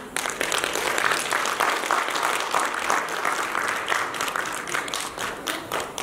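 Audience applauding: dense clapping from many hands that starts suddenly and keeps up steadily.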